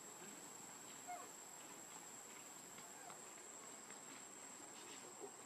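Near silence: faint outdoor background with a steady high-pitched whine and a few faint short chirps, one about a second in.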